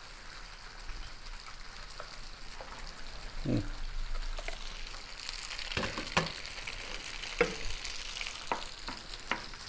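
Noodles sautéing in butter and oil in a frying pan, sizzling steadily. Several sharp clicks of a ladle against a pot or glass dish come in the second half.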